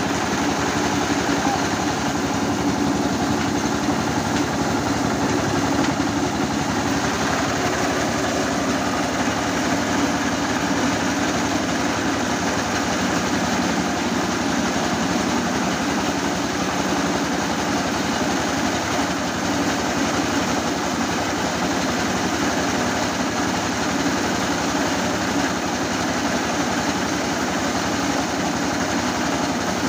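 Two-wheel tractor engine running steadily, driving a homemade rice huller as it mills rice.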